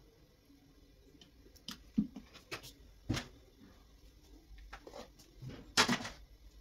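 Handling noises: a few scattered knocks and taps, the loudest about two seconds in and again near the end.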